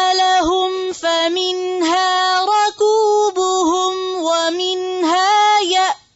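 Wordless female vocal, a high held tone with quick dips in pitch, broken by short pauses every second or two, dropping out briefly near the end.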